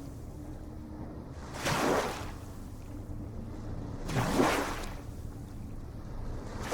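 Small ocean waves breaking and splashing, one swell of surf about every two and a half seconds over a steady low rumble.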